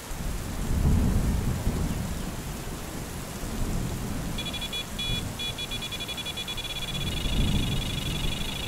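Thunder rumbling over steady rain, swelling about a second in and again near the end. From about halfway a rapid, high-pitched pulsing tone joins in.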